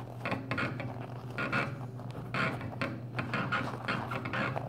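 Soft rubber RC crawler tire with a foam insert being squeezed and flexed by hand, making irregular rubbing and scuffing noises over a faint steady hum.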